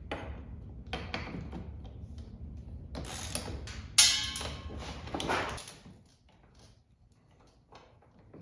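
Workshop handling noises as a fuel tank is taken off an ATV: irregular clicks, taps and knocks of tools and parts, with one sharp knock about four seconds in. A low hum underneath stops a little past halfway.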